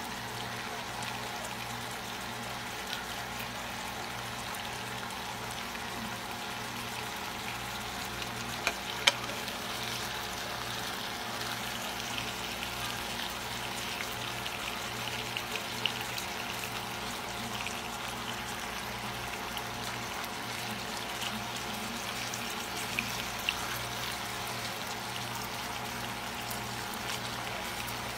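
Chicken thighs and onions frying in a pan, a steady sizzle. A wooden spatula stirs them, knocking against the pan a few times.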